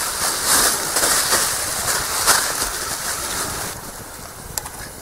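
Plastic bag crinkling in quick, irregular pulses as food is shaken out of it into a frying pan over a wood fire. It stops about three and a half seconds in, leaving the softer sizzle of the pan.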